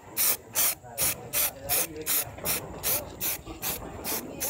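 Aerosol spray-paint can being shaken, its mixing ball rattling in an even rhythm of about two and a half strokes a second, a dozen strokes in all, mixing the paint before spraying.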